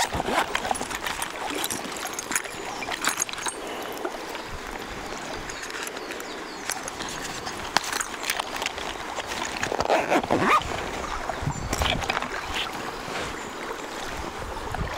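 River water flowing steadily, with scattered clicks and knocks and a short rising sound about ten seconds in.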